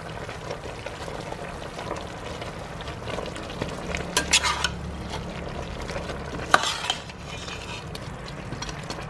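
A metal ladle stirring moringa leaves down into boiling chicken broth in a stainless-steel pot: a steady bubbling hiss, with the ladle scraping and clinking against the pot a few times, most sharply about four seconds in and again a couple of seconds later.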